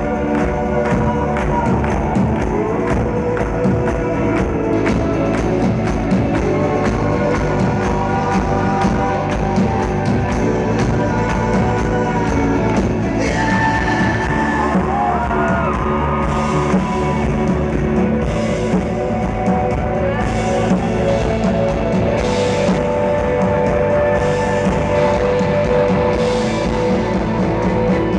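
A rock band playing live, with a lead singer over a drum kit.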